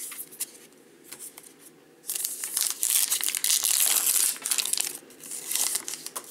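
A baseball card pack's wrapper being torn open and crinkled by hand, loud for about two seconds starting two seconds in, with a shorter crinkle near the end. Before it, faint ticks of cards being handled.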